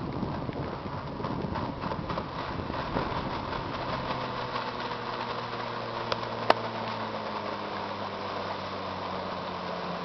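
20 hp Mercury outboard motor running on a small boat as it heads toward the camera. Its engine note comes through clearly from about four seconds in and drifts slightly lower in pitch. One sharp click sounds a little past halfway.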